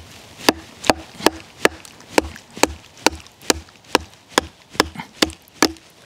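Wooden baton striking the spine of a Victorinox Venture knife, driving the blade down through a dry, seasoned red maple log to split it. A steady run of sharp wooden knocks, about two or three a second, starting about half a second in.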